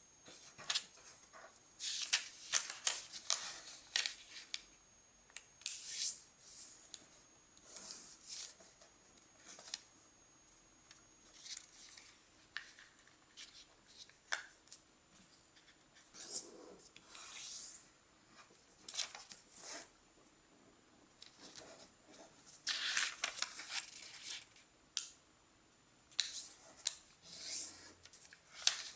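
A sheet of origami paper rustling and crinkling as hands fold it diagonally and press the creases flat, in short bursts with pauses between.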